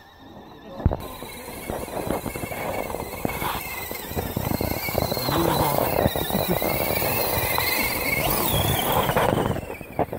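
Electric motor and gear whine of a radio-controlled scale crawler truck, rising and falling with the throttle as its tyres churn through thick mud, with one sharp click about a second in.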